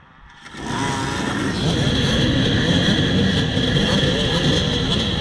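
A row of dirt bikes firing up together about half a second in, a KTM close by among them, then many engines idling and blipping at once: a dead-engine race start.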